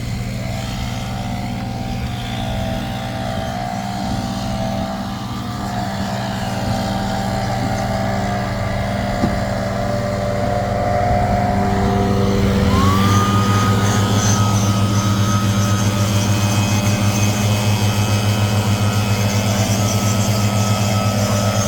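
Small gas engine of a bee blower running steadily, then revving up about 13 seconds in and holding the higher speed, as it is used to blow bees out of honey supers.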